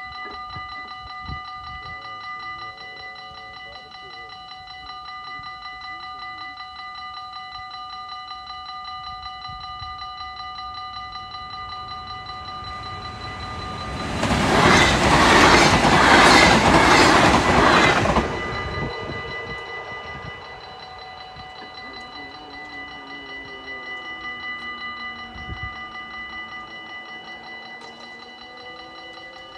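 Dutch level-crossing warning bell ringing in a rapid, steady pattern. About halfway through, a train rushes past for some four seconds, drowning the bell, which keeps ringing afterwards.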